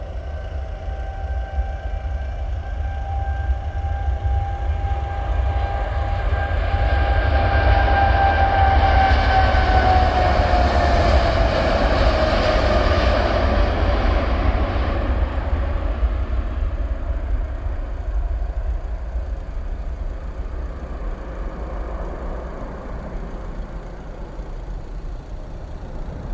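Boeing 787 jet engines at take-off thrust, growing louder as the airliner rolls toward and past, then fading away. A high fan whine holds steady and then drops in pitch as the aircraft passes, about ten to thirteen seconds in.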